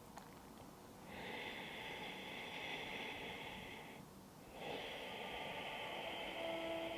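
A woman breathing long and slowly through the nose with her throat narrowed, giving a rasping hiss: two drawn-out breaths of about three seconds each with a short pause between them. It is a yoga breathing exercise against snoring, with the throat deliberately constricted.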